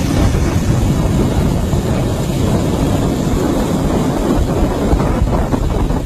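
Loud wind buffeting the microphone over a small boat's motor running on open water.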